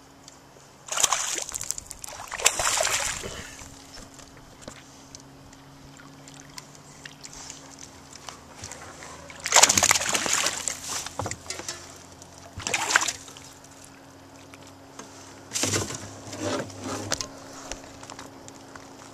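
A largemouth bass hooked on a worm splashing at the surface as it is played in on the line: about five separate bursts of splashing water with quieter gaps between them.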